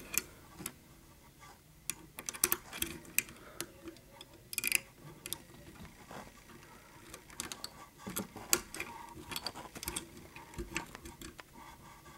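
Hook pick and tension wrench working in a 7-lever safe lock: faint, irregular small metallic clicks and scrapes as the levers are lifted, coming in little clusters.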